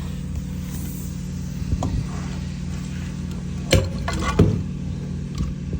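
An engine idling steadily, with a few sharp clicks and knocks about two-thirds of the way in. The battery-powered transfer pump, just switched on, does not run.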